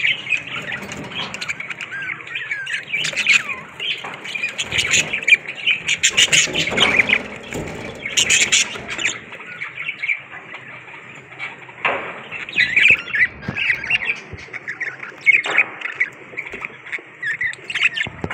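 A flock of budgerigars chattering in a cage: a continuous warbling stream of chirps with harsh squawks, busiest and loudest in the middle of the first half, easing off briefly, then picking up again.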